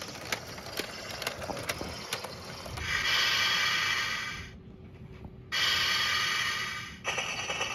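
Small motorised toy train decoration running, its motor and gears clicking and rattling, broken twice by a loud hiss-like sound of about a second and a half each.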